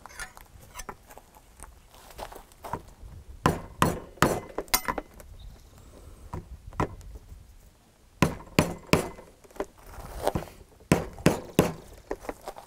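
A rubber mallet tapping a steel driver that rests on a flat bar laid across a seal, driving the seal into a motorcycle's rear sprocket carrier hub. The sharp, clinking taps come in irregular runs of two or three, with a short lull around the middle.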